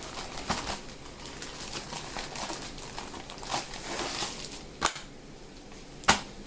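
Plastic tortilla bag crinkling and rustling as flour tortillas are pulled out, with two sharp clicks, about five and six seconds in, the second the loudest.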